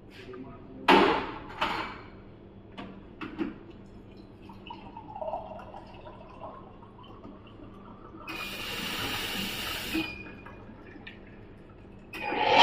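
Automatic bean-to-cup coffee machine in use. A few clicks and knocks from the cup and the machine come first. About 8 s in there is a steady hiss for about two seconds as it dispenses into the cup, and louder running starts near the end.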